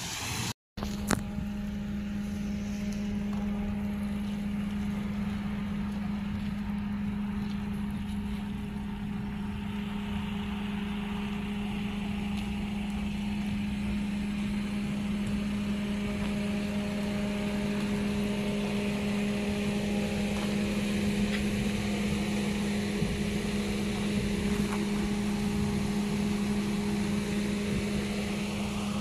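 Car engine and road noise while driving at a steady speed: an even hum with overtones under a hiss that grows slightly louder. The sound cuts out briefly just after the start.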